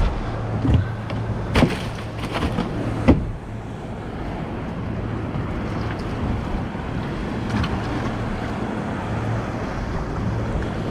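Steady low hum under wind and water noise, with a few sharp knocks about one and a half to three seconds in.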